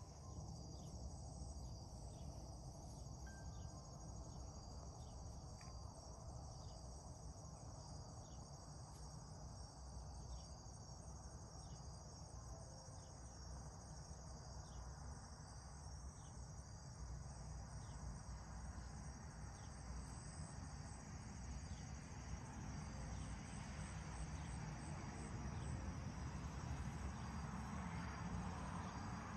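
Quiet, steady evening chorus of crickets trilling high over a low outdoor background hum, getting a little louder near the end.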